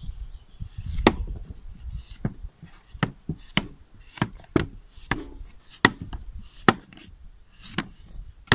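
Kitchen knife chopping root vegetables into bite-sized chunks on a cutting board: a quick, uneven run of sharp knocks, about two a second.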